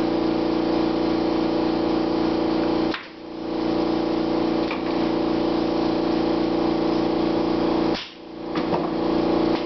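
A steady motor drone with a strong hum that cuts out sharply twice, about five seconds apart, and swells back each time.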